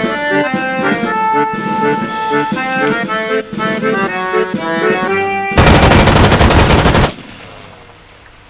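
Instrumental music plays a melody of held notes over an accompaniment. About five and a half seconds in, a loud burst of automatic assault-rifle fire lasts about a second and a half.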